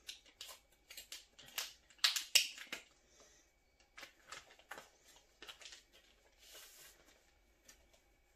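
Packaging being handled and opened: a string of short crinkles and rustles, loudest about two seconds in.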